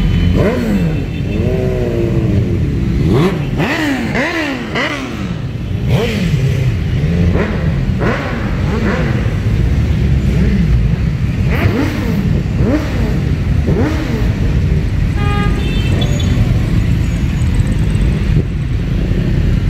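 A large group of motorcycles and scooters riding past at low speed: a dense rumble of many engines, with individual bikes revving up and easing off again and again. A short beeping tone sounds about fifteen seconds in.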